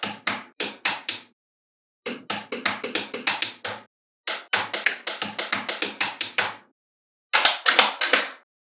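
Small magnetic balls clicking and snapping together one after another as they are placed, in quick runs of sharp clicks broken by short silences.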